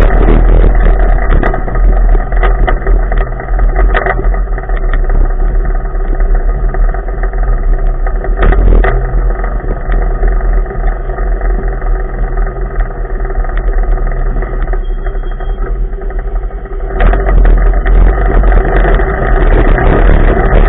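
Onboard sound of a Polaris RZR side-by-side driven hard on a dirt track: the engine runs loud under a heavy low rumble, with frequent knocks and clatter from the rough ground. It eases off for a few seconds and comes back to full loudness about three-quarters of the way through.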